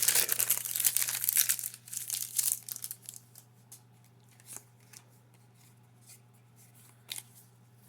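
Foil wrapper of a Pokémon TCG booster pack crinkling and tearing open for about three seconds, then a few faint clicks.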